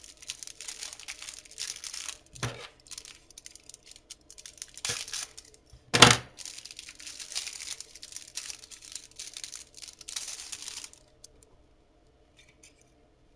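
Clear plastic packaging bag crinkling and rustling as a plastic phone case is worked out of it, with a loud sharp crack about six seconds in and a couple of smaller snaps before it. The rustling stops about eleven seconds in.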